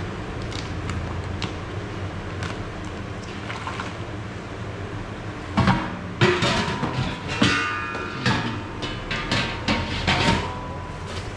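Steady low background hum, then from about halfway on a run of loud, irregular knocks and clatter with brief ringing tones: cooking utensils and containers being handled while a portion of fried macaroni snacks is prepared.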